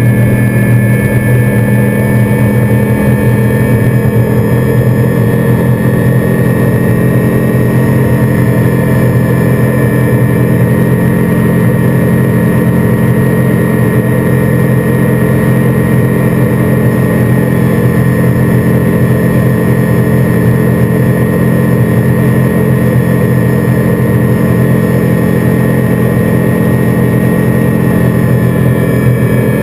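Seven Marine 557 supercharged V8 outboard running hard at a steady high speed, its pitch holding constant throughout.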